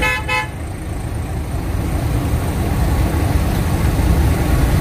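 Truck engine running, heard from inside the cab as a steady low rumble that grows a little louder in the second half. Two short beeps sound at the very start.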